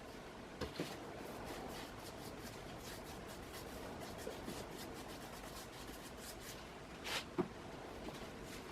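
Paintbrush rubbing creosote onto rough timber: faint scratchy brush strokes, with a couple of light knocks about a second in and again near the end.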